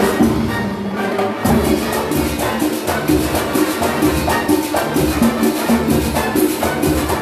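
Live Latin big band playing a salsa-style tune, with steady percussion and brass over a rhythm section.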